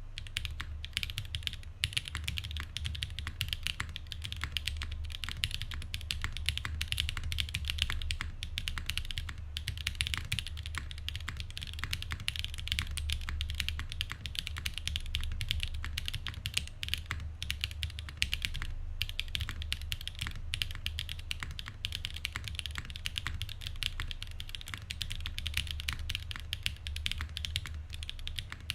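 Leaf65 custom 65% mechanical keyboard being typed on continuously and quickly, with lubed and filmed Cow POM switches in an aluminium plate with no foam under ABS keycaps, giving a dense stream of key clacks.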